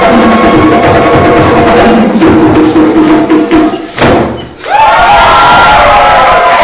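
Live band music with percussion, which stops abruptly about four seconds in. A crowd then cheers and whoops.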